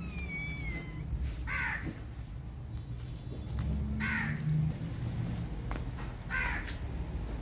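Crow cawing three times, about two and a half seconds apart, each caw harsh and falling in pitch.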